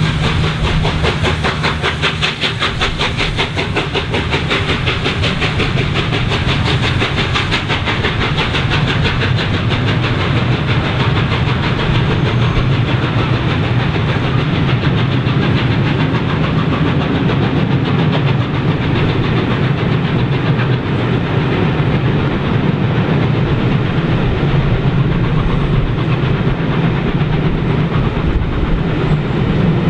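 Three-cylinder Peppercorn A1 Pacific steam locomotive 60163 Tornado working hard as it passes close beneath. Its rapid exhaust beats and steam give way, after about eight seconds, to the steady rumble and clatter of the train's coaches running past.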